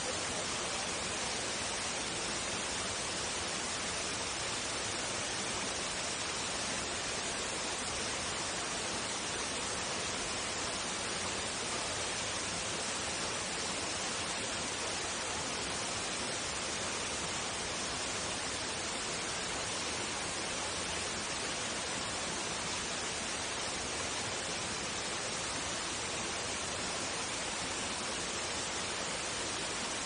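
Steady rushing of a waterfall pouring into its plunge pool, an even hiss of falling water.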